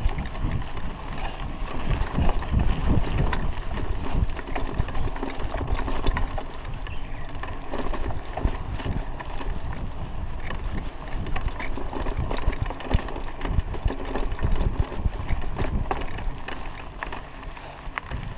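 Raleigh Ascent mountain bike rattling and clattering as it rides over a rough dirt road, with many short knocks over a steady low rumble.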